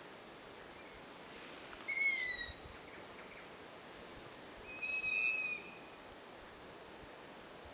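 Long-eared owl chick giving its begging call: two high, thin squeals, the first about two seconds in falling in pitch, the second about five seconds in held level, the young owl begging for food.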